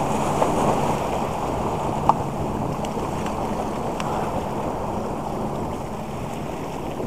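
Small waves washing and foaming over the boulders of a rock jetty, with wind buffeting the microphone; a brief sharp click about two seconds in.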